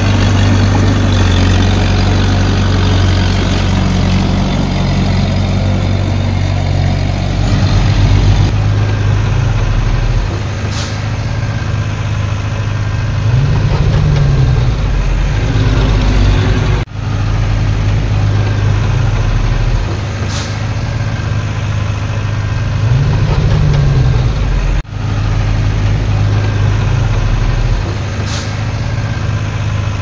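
Heavy diesel engines of earthmoving machines running steadily, the engine note rising and falling a few times. Three short sharp hisses come about ten seconds apart, and the sound breaks off abruptly twice in the second half.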